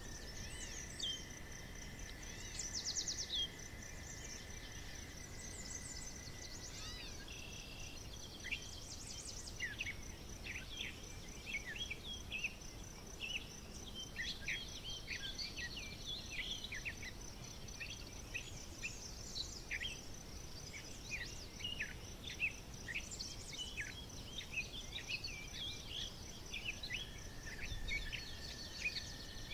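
Countryside ambience of birds singing and chirping, busier after the first several seconds, over a steady high insect trill. A lower steady whine is heard at the start and again near the end.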